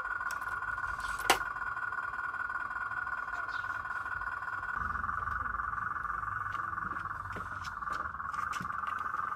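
A chorus of frogs calling steadily, with one sharp click about a second in.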